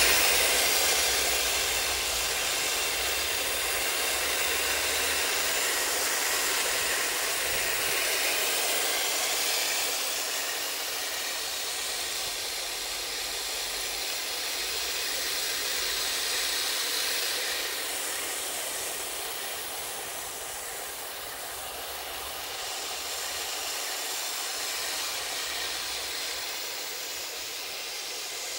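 Radio-controlled M41 Bulldog model tank driving across grass: a steady, noisy whir from the running tank, loudest at first close by and slowly fading as it moves away.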